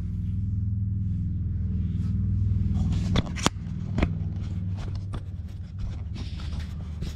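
Rustling and handling noise of someone climbing into a tractor cab, with a few sharp knocks about three to four seconds in, over a steady low rumble.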